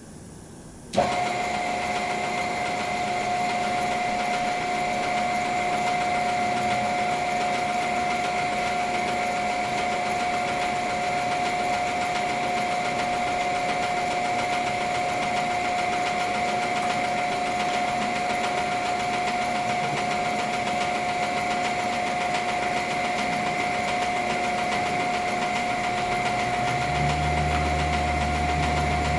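Roskelley 14" x 40" engine lathe (3 HP) starting up about a second in, then running steadily with a high, even gear whine from the headstock. Near the end a deeper steady hum joins.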